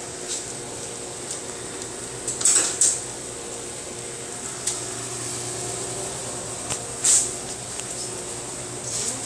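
Steady machine hum with a few short sharp clinks: two close together about two and a half seconds in, a louder one about seven seconds in, and fainter ticks between.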